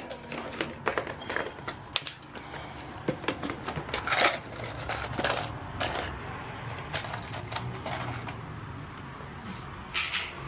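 Lock-picking tools working inside a door lock, with irregular light metallic clicks and short scrapes as the pins are picked.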